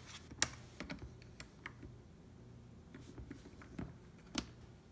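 Toggle switches on a model-train power pack clicking as they are flipped: a sharp click about half a second in and another a little past four seconds, with softer ticks between. The later click is the accidentally bumped momentum switch being set back.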